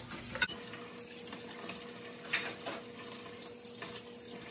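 Kitchen faucet water running into a stainless steel sink as utensils are rinsed, with a few light clinks of utensils against the sink.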